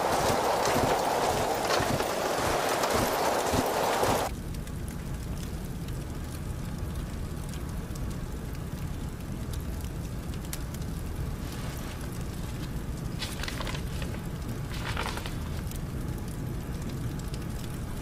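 A dense, rapid clatter over a loud hiss for about four seconds, which cuts off suddenly. It gives way to a low steady rumble, with a couple of faint swishes near the end.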